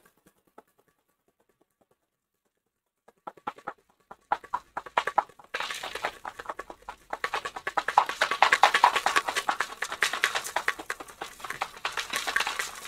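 Ice rattling hard inside a cocktail shaker being shaken: a few loose clicks about three seconds in, then a fast, continuous rattle from about halfway through. A hard shake of a citrus drink that chills it and breaks up the ice.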